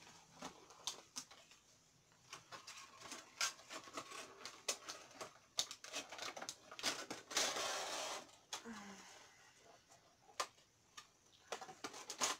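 Crinkling and clicking of a clear plastic Funko Pop protector case and its cardboard window box being handled, with a longer rustle about seven to eight seconds in.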